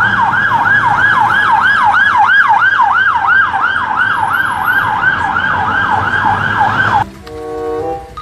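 Police van siren in a fast yelp, sweeping up and down about three times a second. It cuts off abruptly about seven seconds in.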